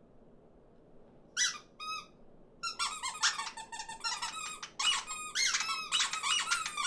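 Cartoon birds chattering in high, squeaky voices. A couple of short squeaks come about a second and a half in, then many overlapping calls bend up and down in pitch.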